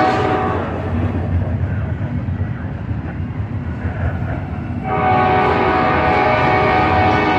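CSX freight locomotive's air horn sounding a chord for a grade crossing. It stops about half a second in, leaving the low rumble of the passing train and locomotive engine, then sounds again in a long blast starting about five seconds in.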